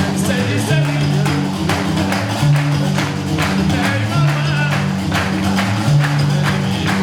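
Gnaoua music: a guembri bass lute plays a repeating riff of low notes that comes round about every second and a half, over the steady metallic clatter of qraqeb iron castanets, with a voice singing.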